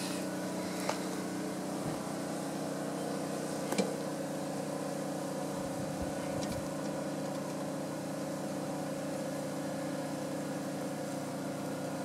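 A motor running steadily with an even hum, with a couple of small clicks, one about a second in and one near four seconds in.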